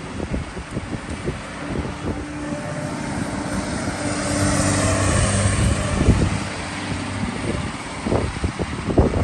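Hyundai R220LC-9A excavator's diesel engine running steadily, growing louder towards the middle, with a few sharp knocks in the second half.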